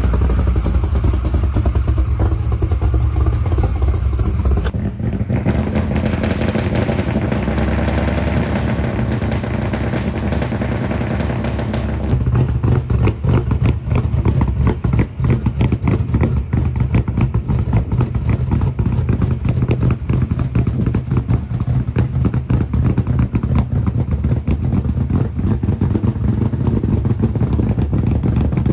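Big-block Ford V8 in a Ford Ranger trophy truck idling, a loud, pulsing exhaust note heard first from inside the cab, then louder from outside the truck from about twelve seconds in.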